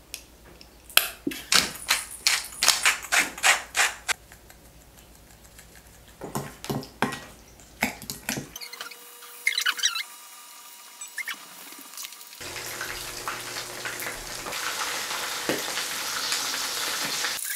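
A quick run of sharp clicks and taps in the first few seconds, then battered shrimp frying in hot oil in a pan, a sizzle that builds steadily over the last five seconds.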